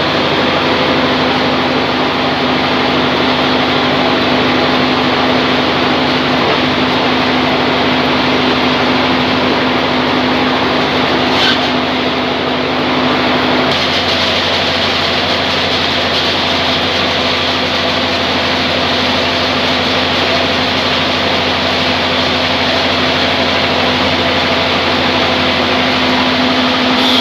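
Band sawmill machine running steadily with a constant hum; the pitch and texture of its noise change about halfway through.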